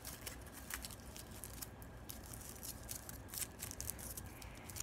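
Hands rolling a small bundle into a ball between the palms: faint, scattered crinkling and rustling.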